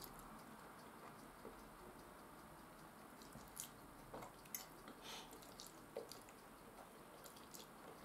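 Faint chewing of fried potatoes, with a scattering of light clicks from a metal fork against a ceramic bowl, mostly in the second half.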